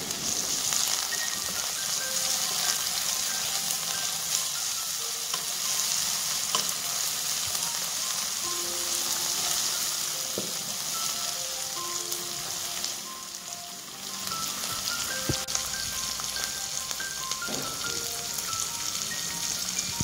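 Sliced onion, garlic, green chilli and tomato sizzling steadily in hot oil as they are sautéed and stirred with a spatula, with a few sharp knocks of the spatula against the pan.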